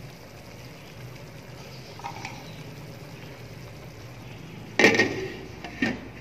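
Glass pan lid set down onto the rim of a non-stick wok of simmering curry: a loud clank with a short ring nearly five seconds in, then a lighter knock about a second later as it settles, over a steady low hum.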